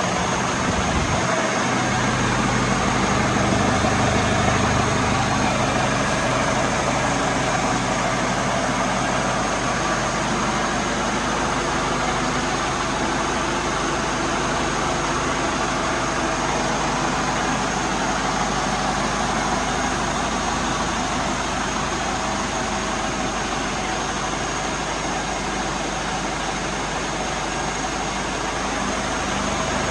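A vehicle engine idling steadily, with a steady high tone running above it.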